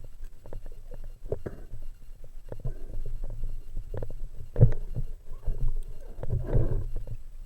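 Muffled underwater sound as picked up by a camera in a waterproof housing: a steady low rumble with scattered knocks and clicks, and two stronger dull thumps, about four and a half and six and a half seconds in.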